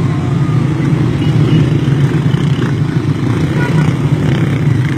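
Many small motorcycles riding past in a long column on a dirt track, their engines blending into one steady, rough drone.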